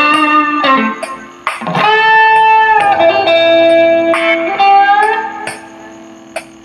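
Electric guitar playing a slow melody of long held notes with bends and slides, over a steady high tick about twice a second. The last note dies away near the end.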